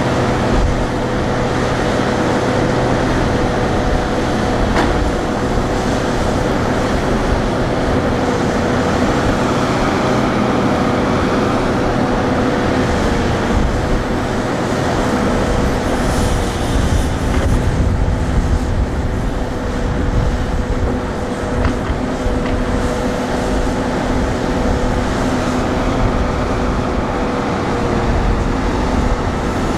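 Excavator's diesel engine running steadily, with a constant whine over the engine noise.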